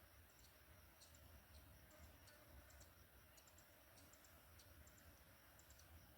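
Near silence with faint, irregular high-pitched clicks, a few each second.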